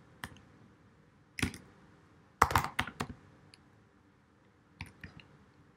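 Typing on a computer keyboard: scattered single keystrokes and a quick run of several about two and a half seconds in, with a few more clicks near the end.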